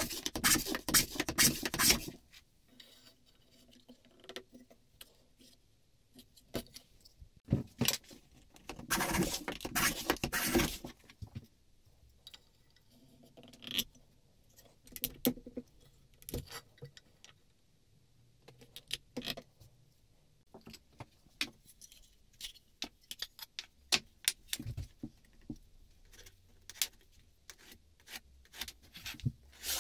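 Hand tool scraping rapidly along a light-wood workpiece in two short bouts, with scattered clicks and knocks as the wooden parts are handled on the bench. Near the end, short scratchy strokes of a pen marking the wood.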